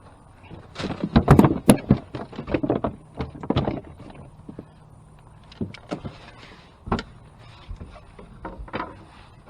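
A run of quick knocks, taps and clatter against a fishing boat as gear is handled, densest in the first few seconds, then a few scattered single knocks.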